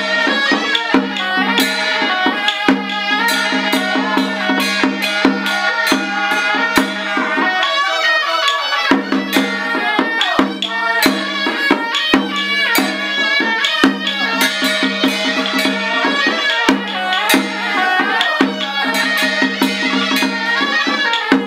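Traditional Taiwanese temple procession music: a reedy wind melody with a steady held tone, over busy drum, gong and cymbal strikes.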